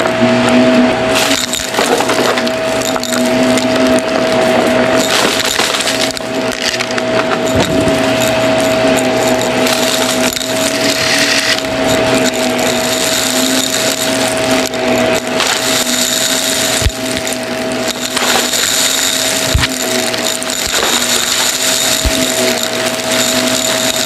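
Bagless upright vacuum cleaner running steadily with a constant whine, its head pushed back and forth over carpet littered with small bits that crackle and rattle as they are sucked up.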